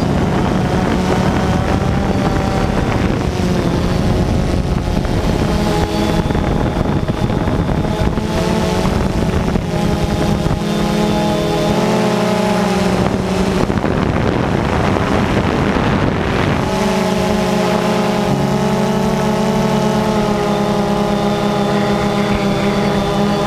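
Multirotor drone's electric motors and propellers humming close to the camera, several steady tones that step up and down in pitch as the throttle changes. From about halfway through, for several seconds, wind rush on the microphone drowns the tones before they come back.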